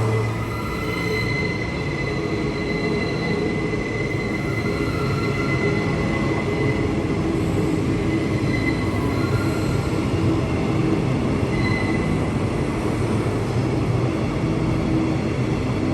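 Queensland Rail electric suburban train running along a platform, a steady rumble with thin high steady tones of squealing wheels.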